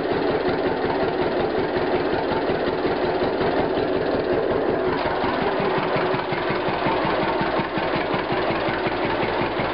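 1951 John Deere Model A two-cylinder tractor engine running with a steady, even firing beat, shortly after a cold start.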